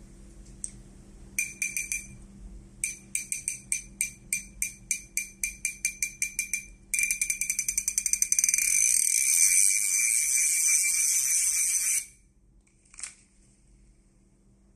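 Drag clicker on a Shimano Curado MGL baitcasting reel clicking as the spool turns against the drag. A short quick burst comes first, then separate clicks at about five a second that speed up. From about seven seconds in they become a fast continuous rattle that stops suddenly about five seconds later, followed by one faint click.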